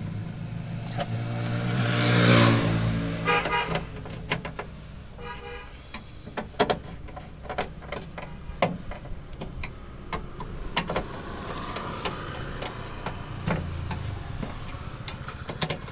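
Street traffic: a vehicle passes close by, loudest about two and a half seconds in, and a car horn toots briefly a couple of times just after. Sharp clicks and taps of a screwdriver on the car door's bare metal inner panel run through the rest.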